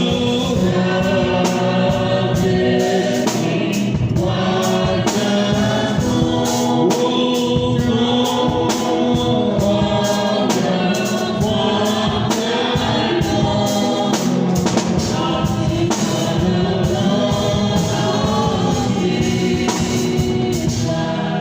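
Congregation singing a gospel hymn with a steady percussion beat.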